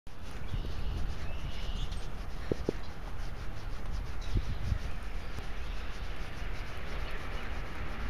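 Outdoor trackside ambience: a steady low rumble of wind on the microphone, with a few faint bird chirps in the first two seconds.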